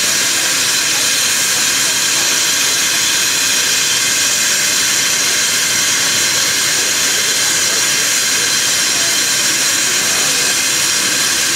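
Narrow-gauge steam locomotive letting off steam in a loud, steady hiss, with no chuffing.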